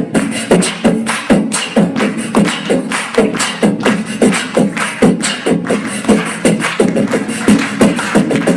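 A man making rhythmic vocal percussion with his mouth, beatbox-style: sharp clicks and short voiced beats in a steady pulse of about two to three a second.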